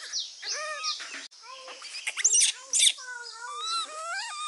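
Baby monkey calling with high, wavering cries: a short one near the start and a longer wavering one in the second half, with high chirps between them.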